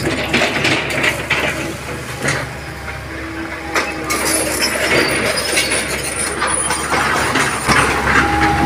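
Hitachi crawler excavator's diesel engine running steadily under work, with repeated clanks, knocks and cracks as it shoves felled tree branches. Motorbike engines join in over the second half, passing close.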